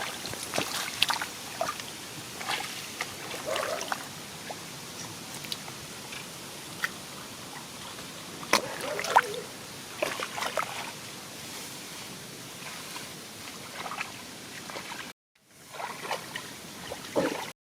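Shallow paddy water splashing and sloshing in short, irregular bursts over a steady hiss. The sound cuts out briefly near the end.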